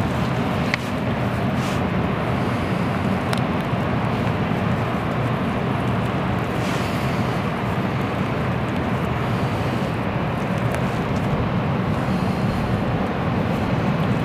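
Steady rushing background noise outdoors, even and unbroken, with a few faint clicks.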